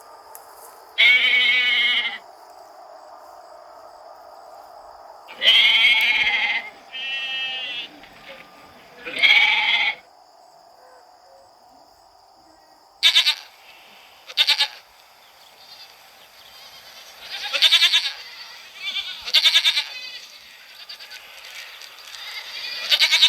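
Goats bleating: a string of about ten bleats with gaps between, several long and wavering, some short and clipped, bunched closer together in the second half. A steady hum runs underneath.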